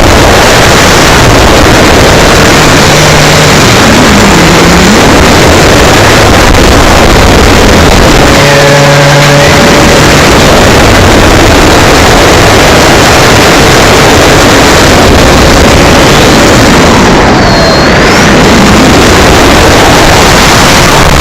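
Loud, overloaded rush of wind and propeller noise from an electric RC Cessna 182's 850 kV brushless motor turning an 11x9 prop, picked up by a tiny onboard keychain camera microphone. A faint motor whine rises and falls in pitch a few times with the throttle, and is held steady for a couple of seconds in the middle.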